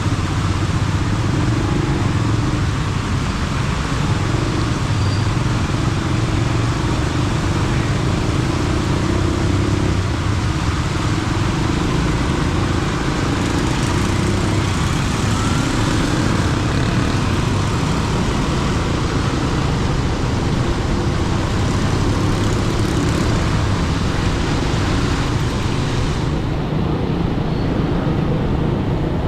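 Steady engine hum and road noise of a vehicle in traffic, with an even hiss over it; the higher part of the hiss drops away a few seconds before the end.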